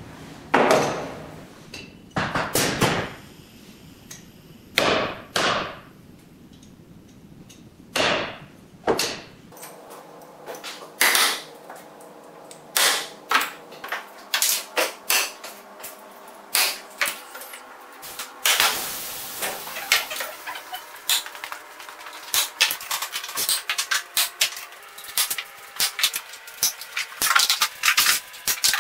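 Small metal parts of an EDgun Leshiy 2 air rifle's lever knocking and clicking as steel axles are fitted into them by hand. Separate sharp knocks come a second or two apart, then from about two-thirds of the way in a quicker, denser run of clicks and taps.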